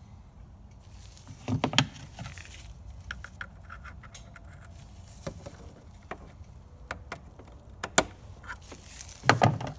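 A metal pick taps, clicks and scrapes against the plastic retaining clip and hose fitting on a coolant expansion tank as the clip is released. There is a sharp click about eight seconds in, and two short, louder bursts of handling noise, one near the start and one near the end.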